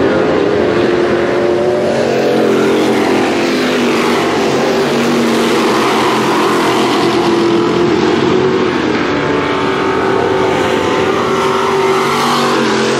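Several V8 Thunder Stock race cars running together in a dirt-track heat race, a steady loud pack of engine sound whose overlapping pitches slowly rise and fall as the cars go around.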